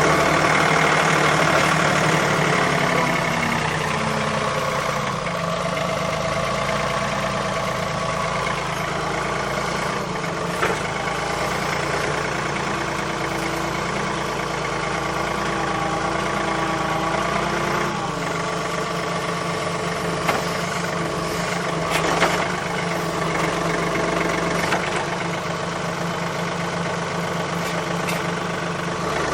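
Engine running at a steady speed, its pitch shifting slightly about two thirds of the way in, with a few short knocks over it.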